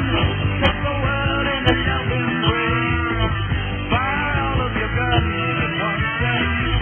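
Rock music playing as a soundtrack.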